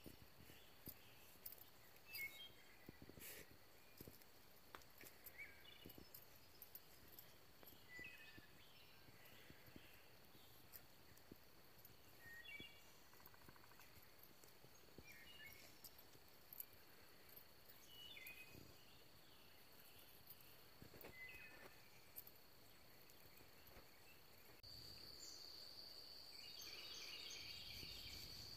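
Faint countryside ambience: a steady high insect drone with short bird chirps every second or two. Near the end the insect drone gets louder and a pulsing insect chorus joins in.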